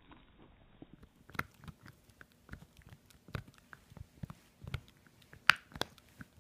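Boston terrier chewing a boiled pork rib bone: a run of irregular crunches and clicks of teeth on meat and bone, the loudest two near the end.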